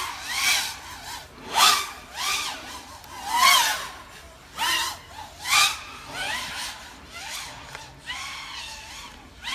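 FPV quadcopter's brushless motors whining in repeated throttle bursts, each rising and falling in pitch, about one or two a second, louder in the first half.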